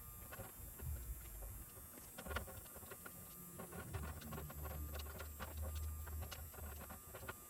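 Scattered light clicks and knocks over a low rumble that is strongest between about four and seven seconds in.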